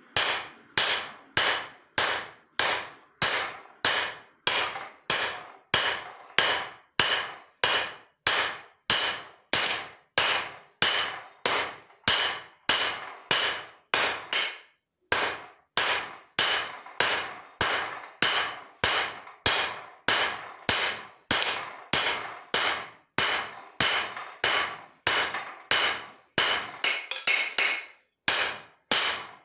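Hand hammer striking steel on an anvil in a steady rhythm, a little under two blows a second, each blow ringing briefly. There is one short pause about halfway through. This is the drawing-out of leaf-spring steel into a cleaver blade.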